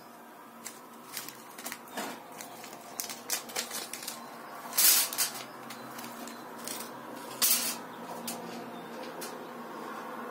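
A clear plastic bag of small steel hex nuts being handled: the bag crinkles and the nuts click and rattle. Two louder clatters come about five and seven and a half seconds in, as the nuts are tipped out onto the metal tabletop.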